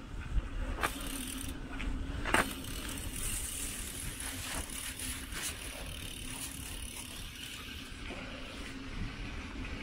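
Mountain bike being ridden, its tyres rolling over the path with a steady rumble, and a couple of sharp knocks and rattles from the bike about one and two and a half seconds in.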